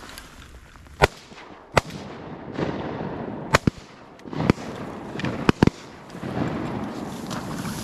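A volley of shotgun shots while duck hunting: about six sharp blasts in roughly five seconds, the last two almost on top of each other.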